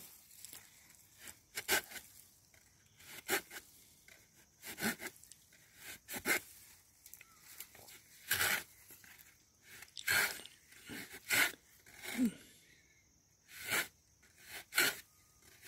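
Hand saw cutting into a green moringa stem: about ten short, separate rasping strokes, roughly one every second and a half, each pulled in one direction only.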